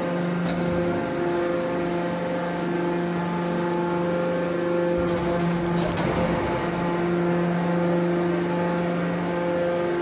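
Hydraulic scrap metal baler's power unit running with a steady hum, its pitch holding throughout, with a brief hiss about halfway through.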